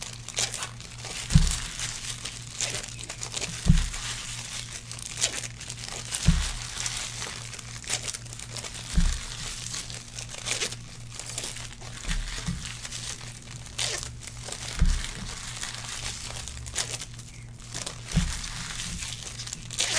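Foil trading-card wrappers crinkling and tearing as packs are opened and cards handled, with soft low thumps every two to three seconds, over a steady low hum.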